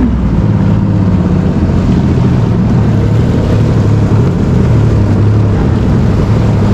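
Personal watercraft (jet ski) engine running at a steady pitch while under way on the water.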